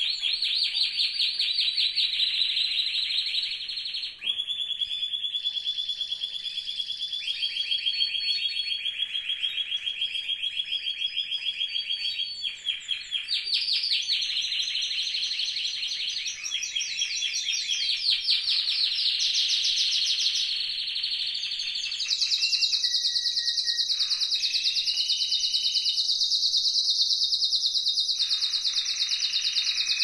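Spanish timbrado canary singing a continuous song of rolled, fast-pulsed trills, each held for a few seconds before it switches to the next. For about the last third it settles into one long, higher, steady trill.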